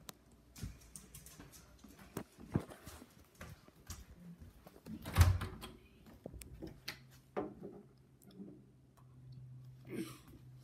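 Handling noise of a phone camera being moved about: scattered knocks, bumps and rubbing, with one louder thump about five seconds in. A low steady hum comes in about seven seconds in.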